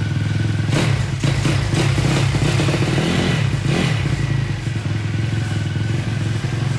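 YX 160 single-cylinder four-stroke pit-bike engine running on its first start, with the carburettor not yet tuned. It is blipped and revved a few times in the first four seconds, then settles back to a steady idle.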